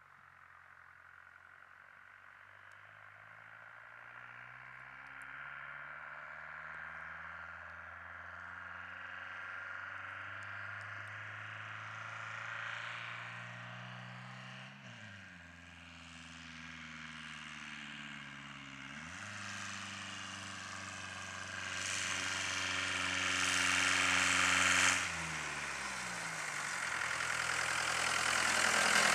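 Ford Transit van's diesel engine accelerating through the gears, its pitch climbing in each gear and dropping at three gear changes, getting louder as the van comes closer.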